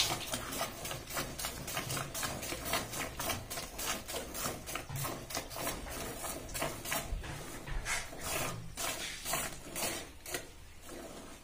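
Milk squirting in quick rhythmic streams into a plastic bucket as a cow is milked by hand, about three squirts a second, thinning out near the end.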